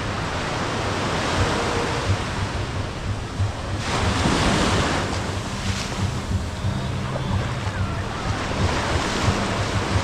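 Ocean surf washing onto a sandy beach, one wave surging louder about four seconds in, with wind buffeting the microphone.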